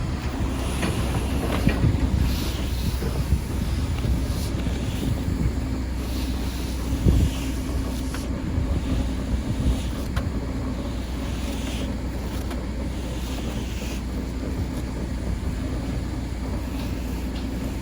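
An engine running steadily, with wind buffeting the microphone and a few light knocks.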